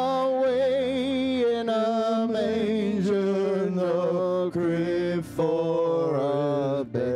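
A man singing a gospel song into a microphone, drawing out long notes with a wavering vibrato and short breaks between phrases, over a steady keyboard accompaniment.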